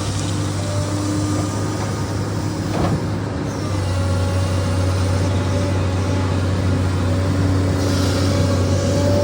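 SANY excavator's diesel engine running under load, with thin steady whining tones above the low engine note. A short knock about three seconds in, and the engine grows louder about four seconds in.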